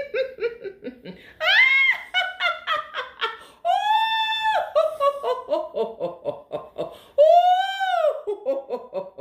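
A woman doing a deliberate laughter-yoga 'giddy laughter', rising from quiet giggles into loud, rapid ha-ha laughter. It is broken three times by long, high-pitched, open-mouthed 'oh' cries.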